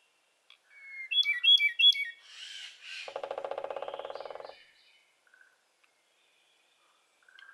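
Birdsong: three quick chirps about a second in, then a lower, rapid buzzing trill lasting about a second and a half.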